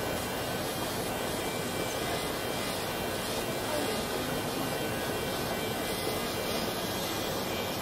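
Electric nail file (e-file) running steadily, its bit working at the cuticle of the big toe.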